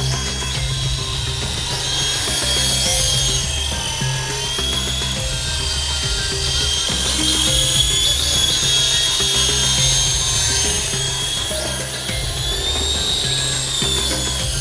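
Background music with a steady beat, with the high-pitched electric whine of the MJX F645 RC helicopter's motor and rotors rising and falling in pitch as the throttle changes in flight.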